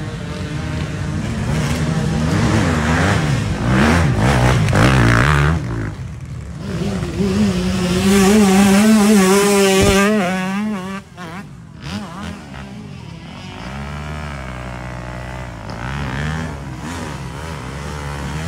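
Dirt bike engines revving hard on a steep hill climb, the pitch surging up and down. One bike is held wide open for about three seconds around the middle, the loudest part. It cuts back sharply just after, and a bike keeps revving more quietly to the end.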